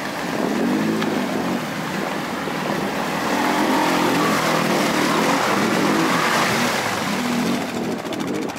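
ATV engine revving, its pitch rising and falling again and again, over a steady rushing noise.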